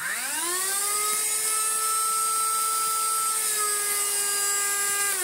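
The 1600-watt motor of a water-damaged Miele C3 Complete Extreme Powerline canister vacuum cleaner spins up, rising in pitch over the first half second, then runs with a steady, strange whine likened to a garden strimmer. It begins to wind down at the very end.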